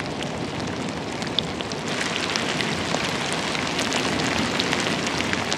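A mass of fly maggots writhing and feeding on carrion: a dense crackle of many tiny clicks, growing louder about two seconds in.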